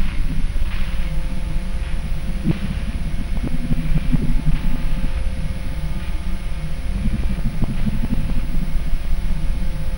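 A steady low rumbling drone with a faint hum, unbroken throughout.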